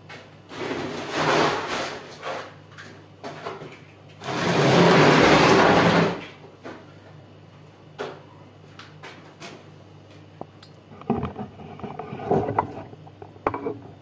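Buckets and sacks of building material being moved about on a bare concrete floor. A long scrape of about two seconds, the loudest sound, comes a little before the middle, with shorter scuffs before it and scattered knocks and clicks later.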